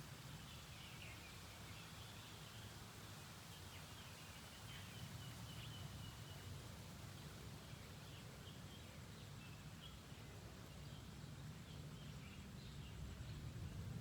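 Faint steady rain hiss with a low rumble underneath, and faint bird chirps scattered through it.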